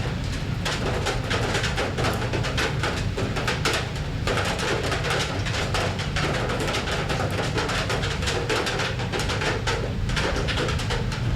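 Rain falling on a metal surface: a dense, steady patter of countless small drop impacts over a constant low rumble.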